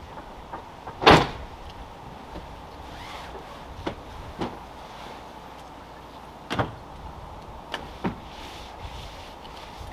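A scattering of short sharp knocks and scrapes, the loudest about a second in and a handful more through the middle and later part, over a steady background noise.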